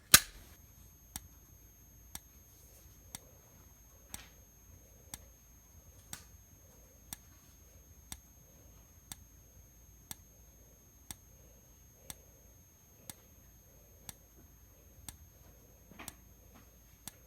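A sharp click as the fire alarm is set off, then its strobe ticking about once a second as it flashes, over a faint steady high whine. The horn stays silent because its speaker does not work.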